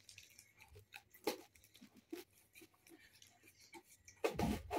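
Faint scattered clicks and small rustles of a cardboard gift box being worked open by hand, with a louder crackling rustle near the end.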